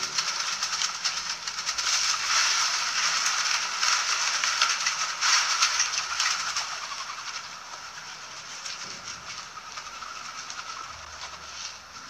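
Doves flapping their wings inside a wire-mesh trap, a busy rustling flutter with quick irregular rattles. It is loudest for the first six seconds or so, then dies down to a lighter flutter.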